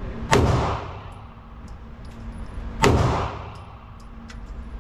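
Two handgun shots about two and a half seconds apart, each sharp crack followed by a short reverberant tail.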